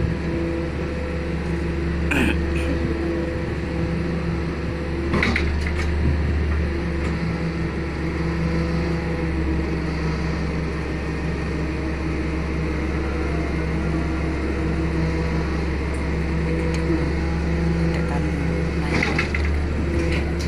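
Hydraulic static pile driver's power unit running with a steady hum at a constant pitch. A few brief knocks about two and five seconds in and near the end.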